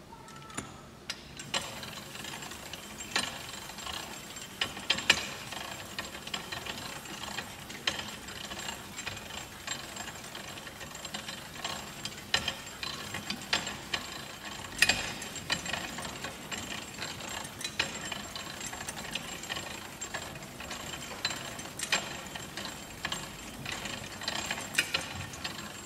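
Hand-cranked geared drawing machine spinning: its metal gears rattle and click unevenly against a large toothed ring gear while its pens run over the paper. It starts about a second and a half in and stops just before the end.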